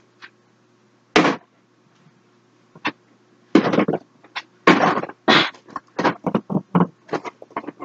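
Makeup palettes and storage being rummaged through and handled: a series of short knocks and clatters, sparse at first and coming thick and fast in the second half.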